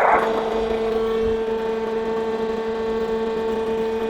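Roll forming machine running with its hydraulic oil pump on: a steady electric hum with a higher steady tone joining about a second in, after a short hiss-like burst at the very start.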